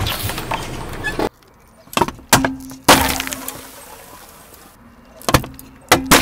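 A car tyre crushing objects in several short cuts: a string of sharp cracks and breaking sounds, the loudest about three seconds in, and near the end two quick pops as soda cans burst under the wheel.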